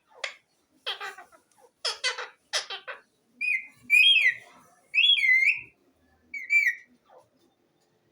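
Pet green parrot giving a run of harsh, raspy calls for about three seconds, then four short whistles that rise and fall in pitch, the middle two the loudest.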